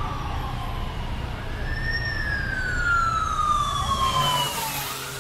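Emergency vehicle siren wailing, slowly rising and then falling in pitch, over the low rumble of passing vehicles; the rumble fades about four seconds in.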